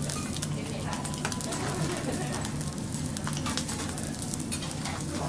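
Food sizzling on a teppanyaki iron griddle, with short clicks and taps of metal spatulas against the hotplate over a steady low hum.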